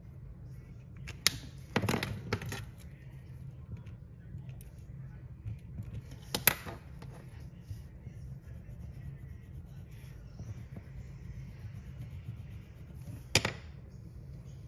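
Plastic felt-tip markers being handled: a few sharp clicks and taps as caps come off and go on and the markers are set down, spread out with faint marker strokes on paper in between, over a steady low hum.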